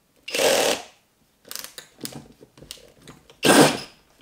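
Cordless drill spinning a 152 mm hole saw into plasterboard in short spurts: two longer cuts, one near the start and one near the end, with a few brief, lighter touches between.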